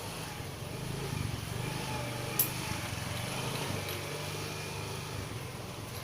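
An engine running steadily with a low hum, with one sharp click about two and a half seconds in.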